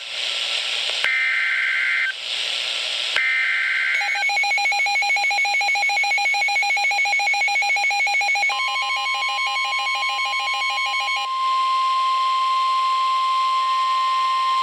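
NOAA Weather Radio EAS alert: two short warbling bursts of SAME digital header tones separated by hiss, then a fast pulsing electronic alert beep. From about halfway a steady high 1050 Hz warning alarm tone starts and carries on alone for the last few seconds, the signal that a warning is about to be read.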